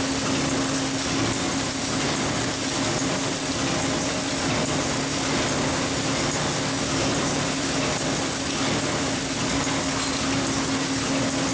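Paper bag machine running steadily: a continuous mechanical whirr with a constant hum under it.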